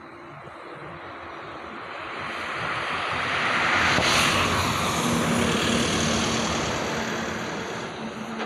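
A motor vehicle passing by: a broad rushing noise that builds to its loudest about four seconds in, then fades away, with a faint engine hum as it recedes.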